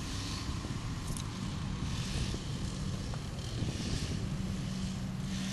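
Large mobile crane's engine running steadily, a low rumble, with a steady hum that sets in about a second and a half in and again after about four seconds.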